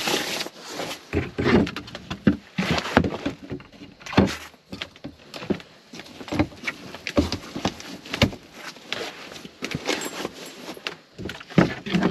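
Irregular rustling, clicks and knocks of a person shifting about and handling clothing and gear close to the microphone.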